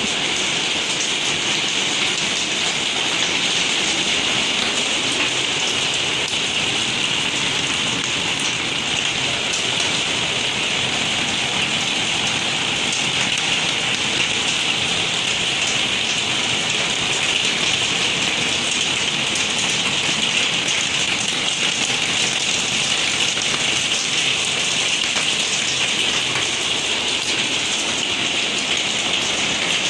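Hailstones drumming on a conservatory's twin-wall polycarbonate roof and windows: a dense, steady pattering clatter that keeps up without a break.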